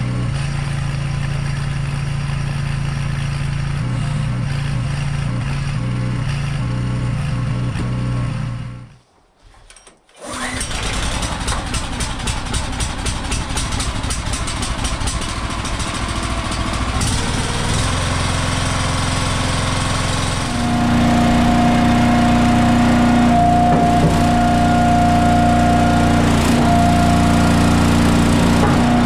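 Compact tractor engine running while its grapple handles logs, then, after a short break, the small gasoline engine of an Eastonmade Ultra log splitter running. The splitter engine gets louder and steadier, with a steady hum, about two-thirds of the way through as the splitter works a log.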